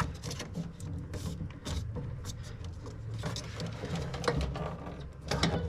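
Rapid, irregular mechanical clicking and rattling of small hard parts being worked by hand, over a steady low hum.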